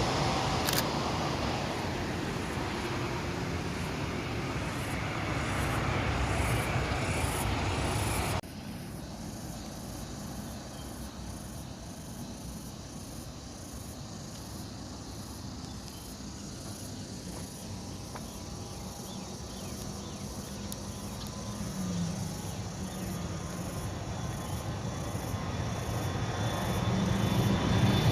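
Jet airliner engine noise, loud at first and slowly fading, cuts off abruptly about eight seconds in. Then comes a quieter steady background with insects chirping, and the jet engine noise builds again near the end.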